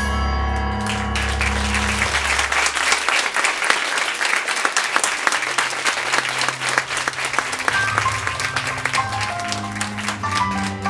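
Audience applause, a dense patter of clapping that starts about a second in and thins near the end, over the dance music, which keeps playing underneath.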